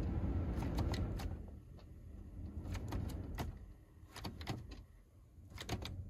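Sharp plastic clicks of buttons on a Dorman aftermarket HVAC control head being pressed and released, about a dozen in small scattered clusters, as the power and defrost buttons are held together over several attempts to enter calibration mode. A low rumble underlies the first second and a half and then fades.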